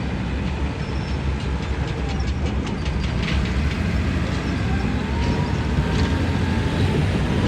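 Heavy excavator's diesel engine running with a steady low rumble, with a short run of clicks and clanks a couple of seconds in.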